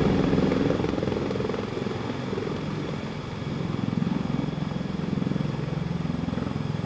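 Sikorsky CH-53K King Stallion heavy-lift helicopter setting down, its rotors giving a rapid low beat over steady turbine noise. The sound dips briefly about halfway through, then swells again as the machine sits on its wheels with rotors turning.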